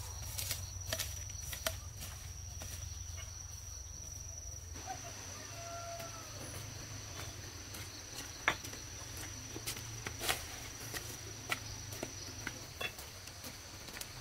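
Scattered footsteps and the rustle of a carried bundle of leaves, over a steady high insect trill and a low hum. A faint bird call comes about five seconds in.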